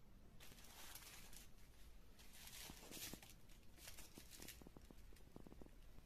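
Faint rustling and crinkling of bubble wrap being pulled off a stethoscope by hand, in three short bursts, followed by a few light clicks.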